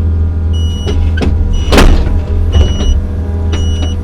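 Kobelco SK55 mini excavator's diesel engine running steadily, with a short high warning beep repeating about once a second. A loud clank comes a little under two seconds in, with lighter knocks around it.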